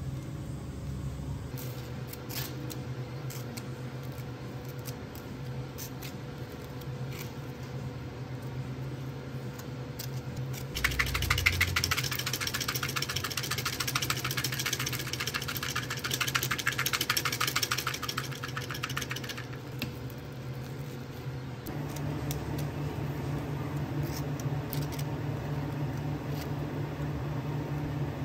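Steady hum of cafe kitchen equipment. About eleven seconds in, a machine starts with a rapid, rattling whirr, runs for about eight seconds and stops.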